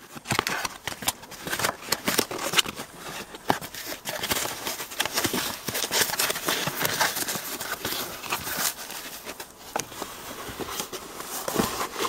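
A cardboard box being opened and foam packing wrap being pulled from around a new shift knob: irregular rustling and crinkling with small clicks and scrapes.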